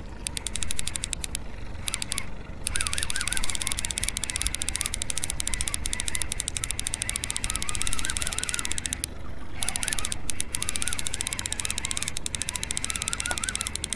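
Trolling reel clicking rapidly as a hooked striped bass is fought and reeled in, pausing briefly twice, over a steady low rumble.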